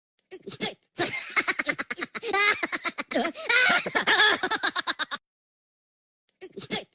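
Minions' cartoon laughter: high, rapid giggling with pitch sliding up and down. A short burst comes near the start, a long run of about four seconds follows, and another short burst comes near the end, with dead silence in between.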